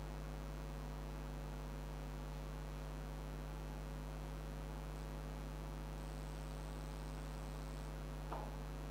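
Steady electrical mains hum with its overtones, carried through the sound system. A brief faint chirp comes near the end.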